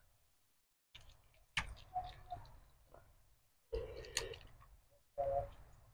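Close-up eating sounds: chewing, wet mouth clicks and roast goat head meat being pulled apart by hand, in short separate bursts. There is a short low throaty sound near the end.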